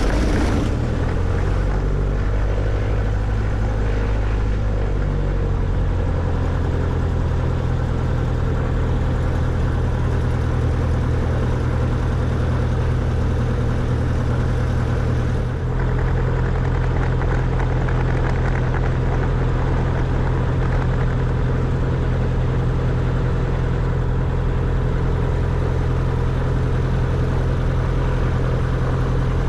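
Cessna 140 floatplane's 135 hp piston engine and propeller running at low power, heard from inside the cockpit. The engine note shifts and settles in the first few seconds after starting, then runs steadily, with a brief dip about halfway through.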